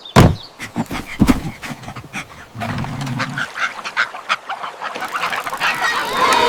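Duck quacks and honking calls from a cartoon soundtrack, mixed with a string of sharp clicks and two loud knocks in the first second or so. A stronger honking call builds near the end.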